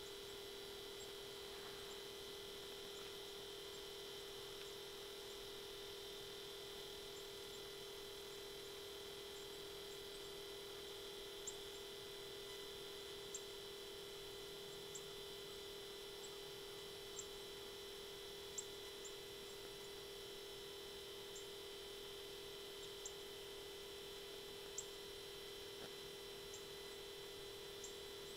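A steady electrical hum made of two even tones, one low and one high, with faint sharp ticks every second or two.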